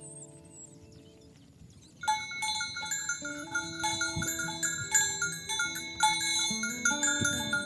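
Metal bells ringing, with many overlapping clear tones and frequent fresh strikes, starting suddenly about two seconds in after a faint, fading hum of steady tones.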